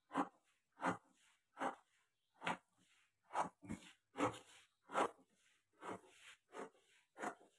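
Scissors snipping through a sheet of pattern paper along a drawn line: about eleven snips at a steady pace, a little more than one a second.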